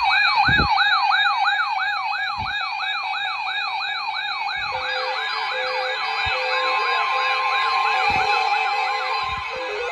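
Electronic siren wailing up and down in quick sweeps, about three a second. About halfway in, a second siren pattern that steps between pitches joins it, with a few low thumps underneath.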